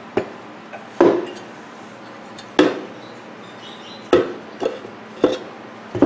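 Microwave oven magnetrons being handled and set down on a wooden workbench: about six separate clunks of their metal housings, spaced irregularly about half a second to a second and a half apart.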